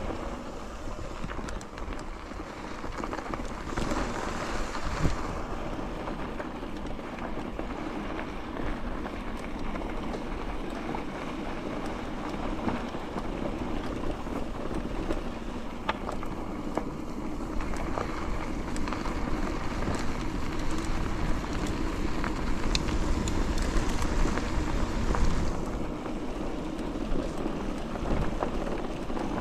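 Wind rushing and buffeting across the microphone: a steady noise that swells and eases, with a few small clicks.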